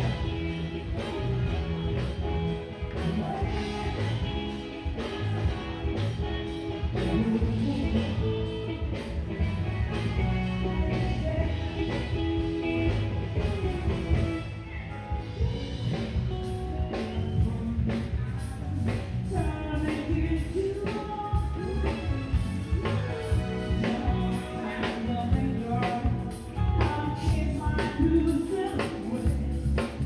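Live band playing a song with a singer, backed by drums and keyboard, heard from across an open-air venue.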